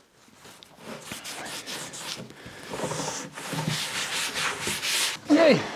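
Cloth rubbing paste wax onto the underside of a wooden table-saw crosscut sled in quick back-and-forth strokes, waxing it so it slides with less friction. A brief falling tone sounds near the end.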